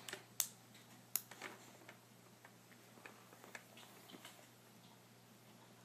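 Faint, irregular clicks and taps from a baby feeding himself with his hands, two sharper clicks in the first second and a half, then scattered lighter ticks.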